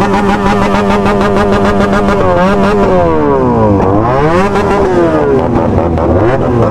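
Motorcycle engines revving. A steady high note is held for about three seconds, then several engines fall off and rev back up, their pitches crossing.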